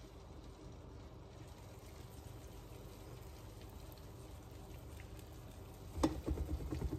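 Faint, steady sizzling of cake batter cooking in a frying pan, its glass lid lifted off. About six seconds in come a few light knocks, the glass lid being handled.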